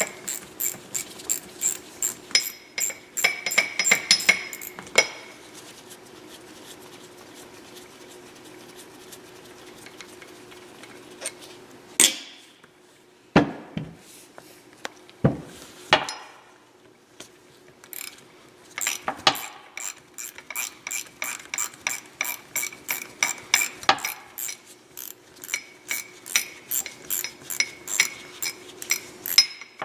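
Ratcheting hand tool clicking in quick even runs, about four clicks a second, as screws are backed out of a linear actuator's housing. A few sharp knocks come midway as the parts are handled.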